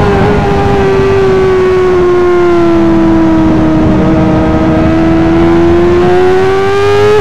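Yamaha R6 inline-four sport bike engine running at high revs at speed, heard from on board through its aftermarket exhaust, over steady wind and road noise. The engine note sags slowly through the first half and climbs back again near the end, as the bike is held in one gear through a fast bend.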